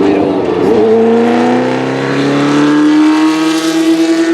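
Cosworth DFV V8 of a 1982 Arrows A4 Formula One car accelerating: its note dips briefly just under a second in, then rises steadily and levels off near the end.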